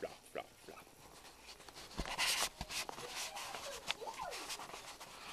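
Rustling and handling noise, with a couple of soft knocks about two seconds in and scattered small clicks, as plush merchandise and the recording device are handled; a faint voice carries through briefly near the middle.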